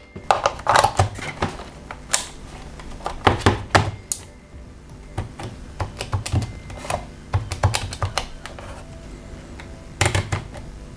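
Plastic clicks and taps from a Casio VL-1 VL-Tone mini keyboard being handled and its small buttons and keys pressed over and over, with louder knocks in the first four seconds and again near the end. The keyboard itself gives no tone: although its display has come on, it makes no sound, a fault beyond the corroded battery terminals.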